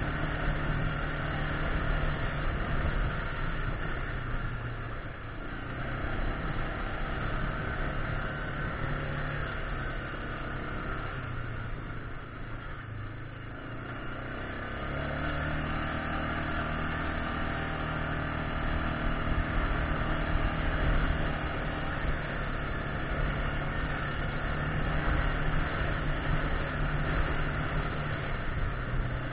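Yamaha Grizzly 600 ATV's single-cylinder engine running under way over a gravel track, easing off briefly about five seconds in and again for a few seconds in the middle, then pulling harder again.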